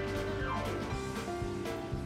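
Background music with a steady beat and held notes, with a note sliding down in pitch about half a second in.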